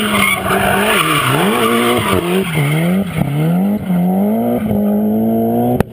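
Mitsubishi Lancer Evolution IX RS rally car's turbocharged four-cylinder engine revving up and down over and over as the car slides, with tyre noise from the skid. A sharp click just before the end.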